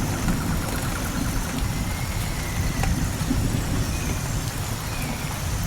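Steady rain falling in a forest, with a continuous deep low rumble under the hiss and scattered single drop ticks.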